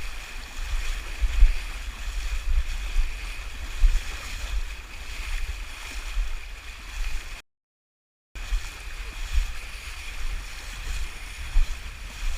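River current rushing steadily around a hiker wading across, with heavy low buffeting on the microphone throughout. The sound cuts out completely for about a second just past the middle.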